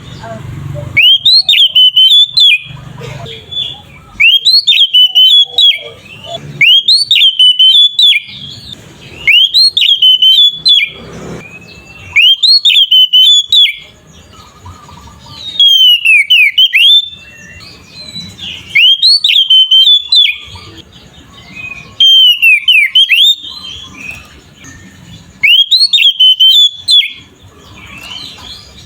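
Oriental magpie-robin (kacer) singing in full loud song: clear whistled phrases with rising and falling notes, repeated about every two seconds, with quieter twittering in the gaps.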